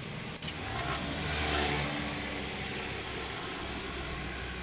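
A motor vehicle's engine going by, swelling to its loudest about one and a half seconds in and then easing to a steady hum. A faint click of small metal parts is heard near the start.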